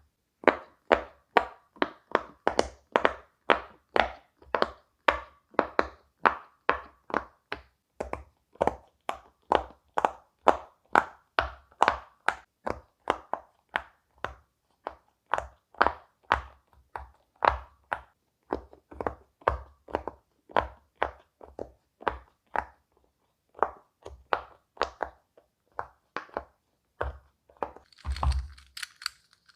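Silicone pop-it fidget toy bubbles being pressed one after another, a quick run of short pops about two to three a second with a few brief pauses. Near the end comes a single louder thump.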